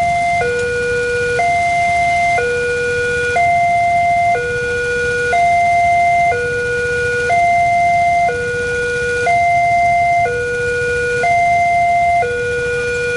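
Indonesian electronic level-crossing alarm sounding from the loudspeaker on the crossing signal post. It alternates steadily between a higher and a lower tone, each held about a second, warning of an approaching train.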